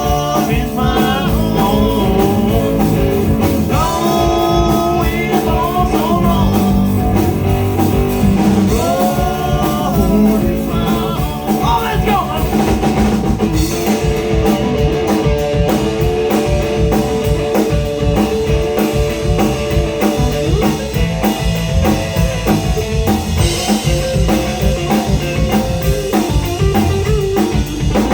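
Live blues-rock band playing, with electric guitar, bass guitar and drum kit.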